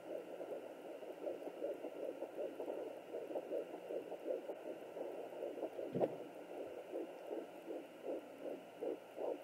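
A fetal heartbeat at 12 weeks of pregnancy, played through a Sonoline B 3 MHz handheld Doppler: rapid, even beats, between two and three a second. There is one sharp knock about six seconds in.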